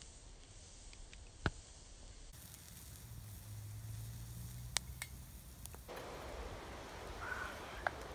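Wood gasifier stove burning under a cooking pot: a faint steady hiss with a few sharp pops of crackling wood.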